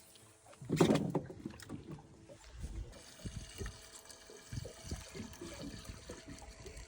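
Water slapping and knocking against a small boat's hull, with one louder thump about a second in.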